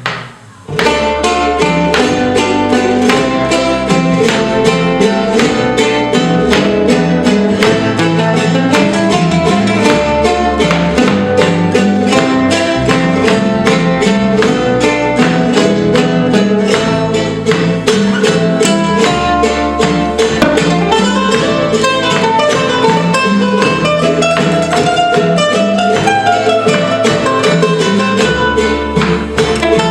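Son jarocho ensemble playing an instrumental passage: jaranas strummed in a fast, even rhythm, a requinto jarocho picking the melody and a bass underneath. The full band comes in about a second in.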